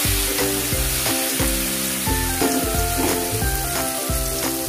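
Egg-dipped grilled eggplant (tortang talong) frying in hot oil in a pan, a steady sizzle, under background music with a steady beat.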